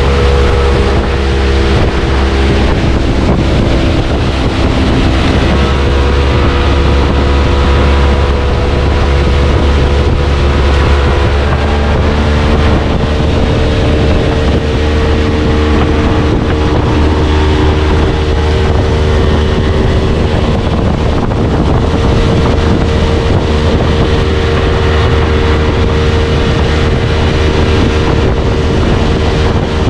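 Tour boat's motor running steadily underway, its engine note stepping up slightly about twelve seconds in, with wind buffeting the microphone.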